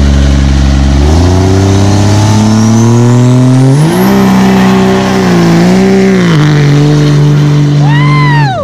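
Diesel Dodge Ram pickup doing a burnout. The engine revs up about a second in and again near four seconds, then holds high while the rear tyres spin, with a whine climbing in pitch over it. The revs fall away just before the end.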